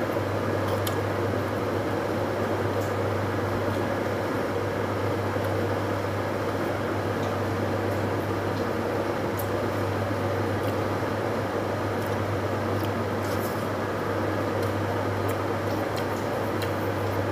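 Steady mechanical hum of an appliance such as a fan or air conditioner, unchanging throughout, with scattered faint clicks and smacks of eating and handling food.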